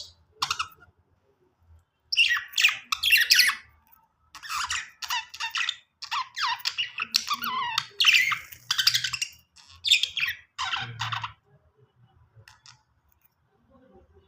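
Budgerigars chirping and chattering in bursts of quick squawky calls with short pauses between them, starting about two seconds in and stopping a few seconds before the end.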